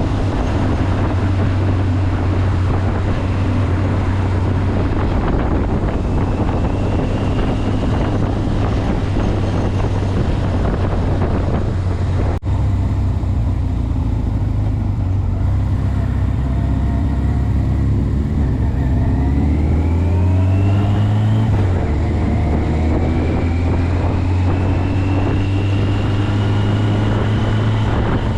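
Motorcycle engine running under way with wind and road noise, a steady drone that climbs in pitch as it accelerates about two-thirds of the way through.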